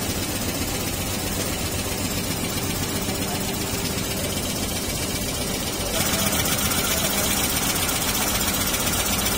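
Industrial multi-needle quilting machine running steadily, a dense mechanical hum and clatter from its row of stitching needles. It gets louder and brighter about six seconds in.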